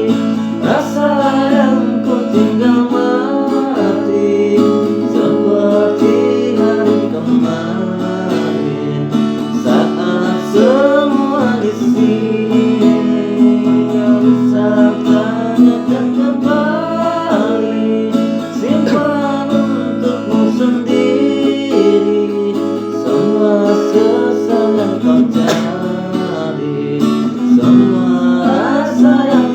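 Acoustic guitar strummed, with a voice singing over it.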